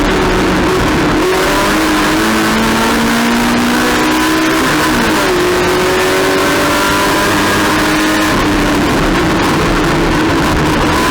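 Race car engine running hard under load, its note slowly climbing and then dropping abruptly twice, about halfway through and again near the three-quarter mark, over a loud rush of noise.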